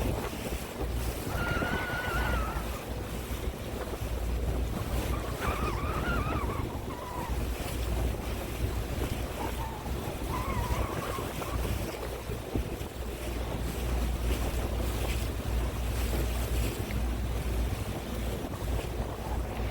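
Wind buffeting the microphone in a steady low rumble, over the wash of water around a boat. A faint wavering tone comes and goes three times in the first half.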